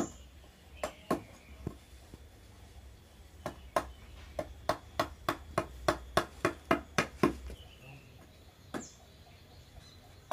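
Wooden mallet striking a carving chisel into a wooden barongan mask block. A few scattered blows come first, then a steady run of about four blows a second for nearly four seconds, then one more blow near the end.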